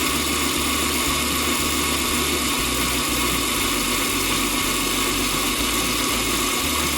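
Metal lathe running steadily while taking heavy roughing cuts down the outside diameter of a Delrin bar, a constant machine hum and cutting hiss.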